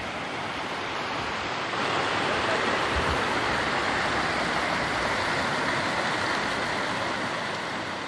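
Shallow river water rushing over rocks in a cascade: a steady rush that grows louder about a second and a half in.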